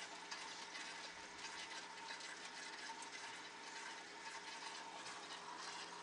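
Internal aquarium filter running, its outflow steadily bubbling and fizzing in the water with a faint steady hum underneath.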